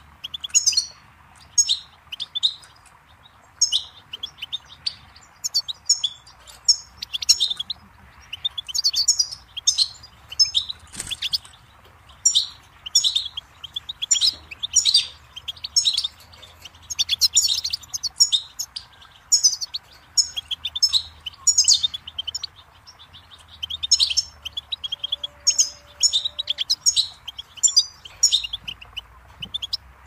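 European goldfinch singing: a fast, unbroken twittering run of short chirps and trills, phrase after phrase.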